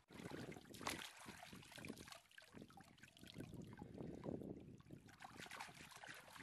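Faint trickling and splashing of shallow stream water as hands rinse a snake in it, with small irregular splashes throughout.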